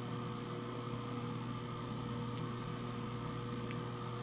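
Faint room tone: a steady low electrical hum with light hiss, and two tiny ticks.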